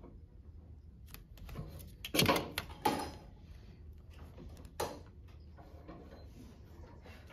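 A large clear plastic drafting triangle being set down and slid into place on the paper against a parallel straightedge: two loud scraping clatters a little after two seconds and near three seconds, then a shorter knock near five seconds.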